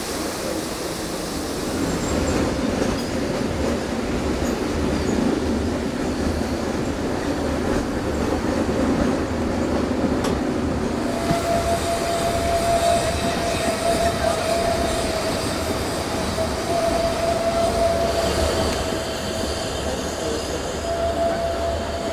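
Carriages of a vintage steam train rolling along a mountain track, heard from aboard, with a steady rumble of wheels and running gear. About halfway through a steady high-pitched wheel squeal sets in and holds until near the end.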